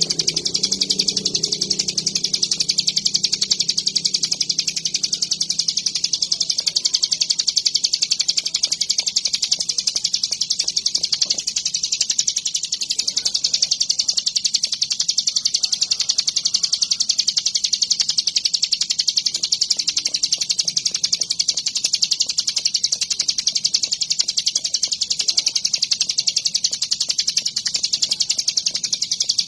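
Ciblek gunung songbird singing a continuous, very fast high chatter of notes without a break: the long, energetic song that bird keepers use as mastering audio to train other songbirds.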